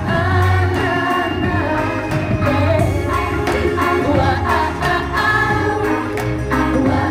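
A woman singing into a microphone over a backing track with a steady beat.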